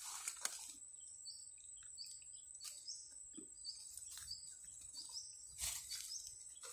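Faint outdoor ambience: a small bird repeating a short high chirp about twice a second over a steady thin high tone, with a few soft clicks.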